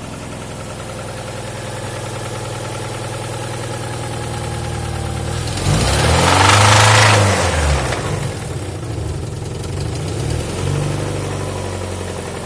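Alfa Romeo 166's 2.0 Twin Spark four-cylinder petrol engine idling, revved up once about five seconds in and let fall back, then blipped again more lightly near the end. The owner hears a knocking from the engine, which sounds to those present like a loose nut or part lying inside.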